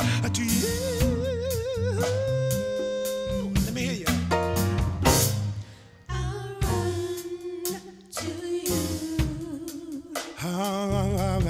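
Gospel band playing live: sung vocals with a wavering vibrato over piano, electric bass and drum kit. The music drops away briefly twice around the middle, then comes back in full.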